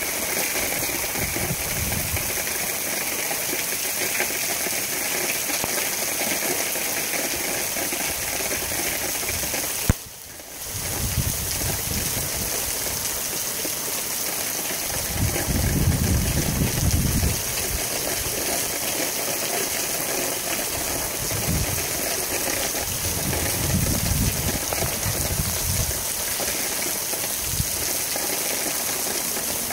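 Tropical-storm rain and wind making a steady, heavy rush. Strong gusts buffet the microphone with a low rumble, loudest about halfway through and again later. A sharp click about ten seconds in is followed by a brief drop in sound.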